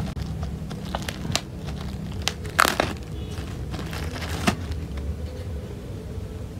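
Thin plastic wrapping bag crinkling as hands unwrap it, with several sharp crackles; the loudest comes about two and a half seconds in.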